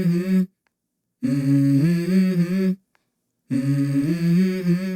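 A voice humming a wordless melody in short phrases of a few held notes that step up and down in pitch, broken by abrupt dead silences between phrases.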